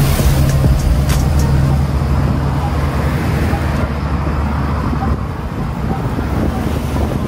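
Road traffic heard from a moving bicycle: a cement mixer truck's engine hums close alongside at first and fades after two or three seconds, over a steady low rumble of passing traffic.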